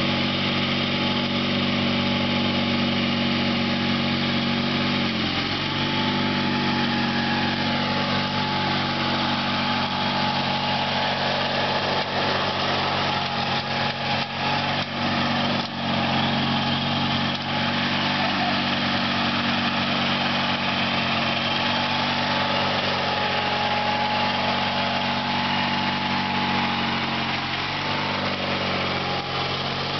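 A 1978 Sears GT/19.9 garden tractor's engine runs steadily while the tractor mows grass. Its pitch drops slightly about five seconds in and shifts again near the end.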